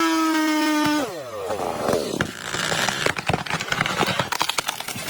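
Two-stroke chainsaw running at full throttle with a steady high whine; about a second in its pitch drops away, followed by a few seconds of irregular crackling and knocking.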